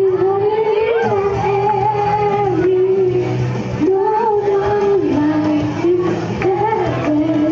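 A young girl singing into a microphone over accompanying music, holding long notes that step and bend between pitches.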